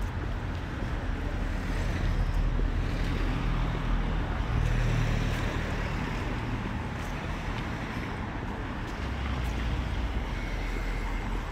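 Road traffic noise, getting louder for a moment about halfway through as a vehicle passes close.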